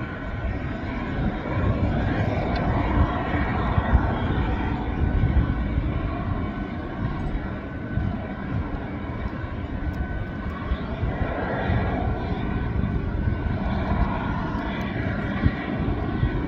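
Airliners at the terminal giving off a steady, distant engine whine, over uneven low rumble from wind on the microphone.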